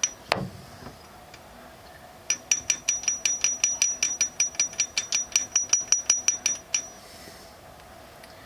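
Rapid, even metallic tapping, about five sharp knocks a second with a bright ring, struck on the camshaft bed of a VAZ 2109 engine to imitate the knock of worn camshaft bed bearings. A single knock comes shortly before the series.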